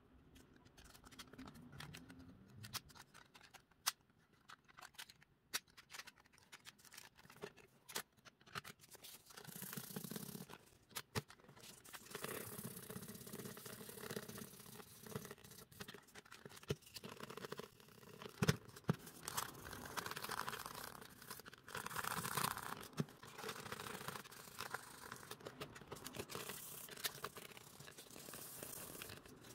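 Hand work on a small metal model car: scattered sharp clicks and knocks of parts and tools, with stretches of scraping or rubbing from about ten seconds in.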